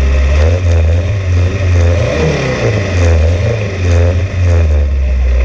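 Dune buggy engine pulling hard up a sand dune, its pitch rising and falling repeatedly as the load and throttle change.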